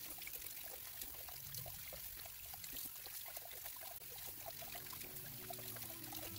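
Kitchen tap running into a sink full of water as cucumbers are rubbed clean by hand: a steady pour with splashing and sloshing.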